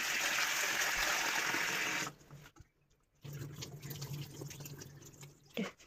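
Tap water pouring into a stainless-steel bowl of chopped food as it is rinsed by hand. It runs steadily for about two seconds, then stops suddenly. After a short pause come quieter sounds of the wet food being handled in the bowl, over a low steady hum.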